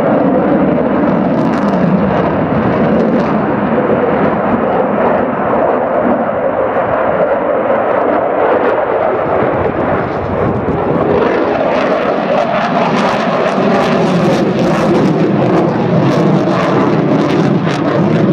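Loud, steady engine noise from a military display aircraft flying past, turning crackly from about two-thirds of the way in.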